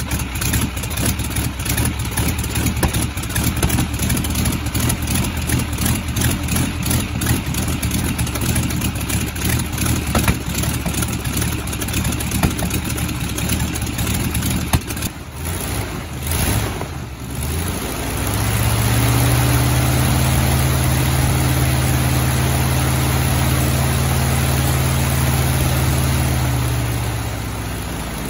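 Jacobs R-755 seven-cylinder air-cooled radial aircraft engine running with its propeller just after a cold start, firing unevenly for the first fifteen seconds or so. It then settles into a louder, steady, even run at higher speed, and its pitch falls as it slows near the end.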